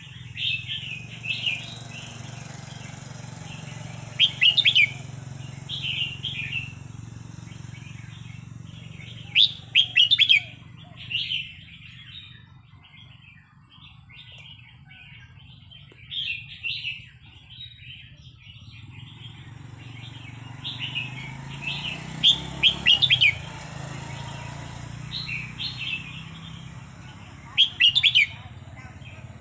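Red-whiskered bulbul singing short, loud whistled phrases, repeated every few seconds: the kind of song kept for training other caged bulbuls to sing.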